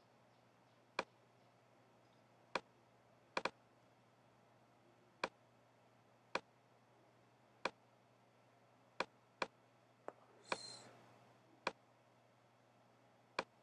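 Computer mouse clicking, about a dozen single clicks at uneven intervals of one to two seconds, with a quick double click about three and a half seconds in. A short soft rush of noise comes about two-thirds of the way through, over a faint steady room hum.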